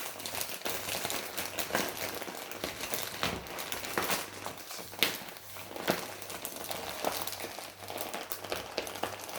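Crinkly packaging being handled and pulled off a tightly packed toy, a steady crackling with a few sharper snaps about five and six seconds in.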